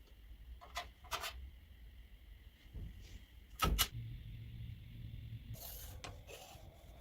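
Scattered knocks and clicks of tools and metal parts being handled, the loudest a sharp double knock just past halfway, followed by a brief low hum and a short scraping hiss near the end.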